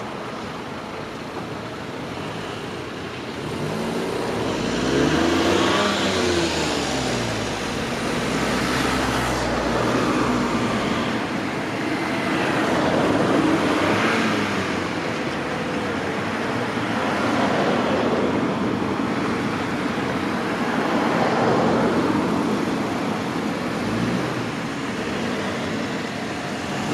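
Road vehicles passing one after another, each swelling and fading as it goes by, about five passes roughly four seconds apart over steady traffic noise.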